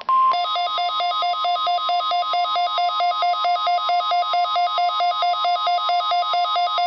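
Midland WR120EZ weather radio sounding its alert alarm, a rapid two-tone beeping that alternates low and high about four times a second, set off by the NOAA Weather Radio 1050 Hz warning alarm tone. That steady tone is heard briefly at the very start.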